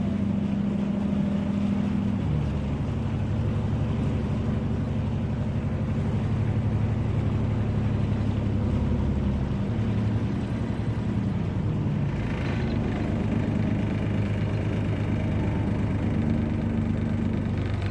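Tour boat's engine running steadily, its pitch shifting slightly about two seconds in.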